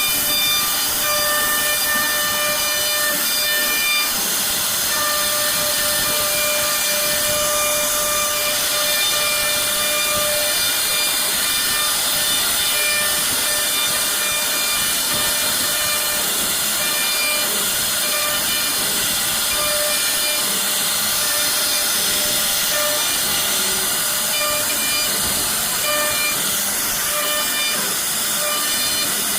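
CNC router spindle cutting wood: a steady high hiss of the bit in the wood with a whine that comes and goes as the cutting load changes.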